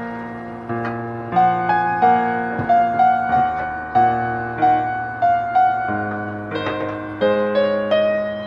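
Background music: a gentle piano melody, single notes and chords struck about every half second to a second, each fading away.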